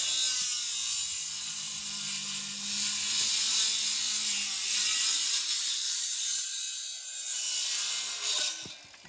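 Handheld electric circular saw cutting through a 4x4 wooden post, a loud steady whine. Near the end the saw stops and the sound falls away as the blade winds down.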